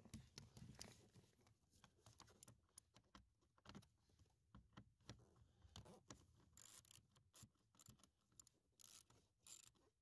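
Ratchet wrench with a 5.5 mm socket and short extension clicking faintly as it backs out a blower motor mounting screw. The clicks are scattered at first, then from about six and a half seconds in they come in a steady run of two or three a second.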